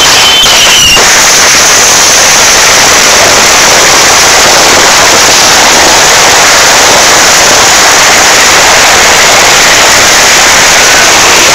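Diwali firecrackers going off close to the microphone in a dense, unbroken crackle, very loud and overloading the recording. It settles into a steady stream about a second in.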